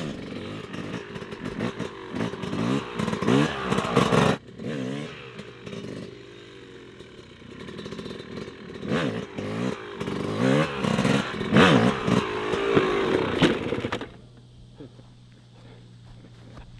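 Retro 250 two-stroke dirt bike revving in repeated rising and falling bursts as the rider pops wheelies. About fourteen seconds in the revving cuts off abruptly as he loops out the wheelie and the bike goes down.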